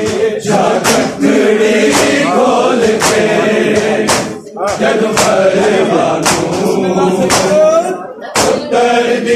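A crowd of men chanting a Punjabi noha (mourning lament) together, with loud unison matam, open hands slapping bare chests, about once a second in time with the chant.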